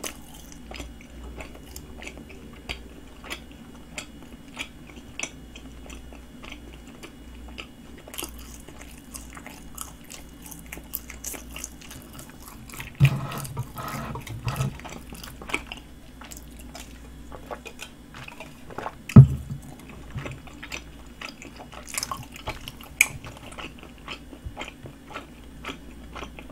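Close-miked chewing of soft, chewy bread, with small wet mouth clicks. About halfway comes a short louder stretch of gulping, and a little later one sharp loud knock.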